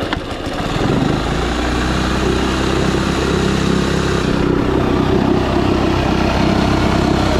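1980s Honda 2 hp four-stroke outboard motor firing up on the choke with fresh fuel, then running steadily from about a second in. The motor has only a forward gear, so its propeller spins in the bucket of water while it runs.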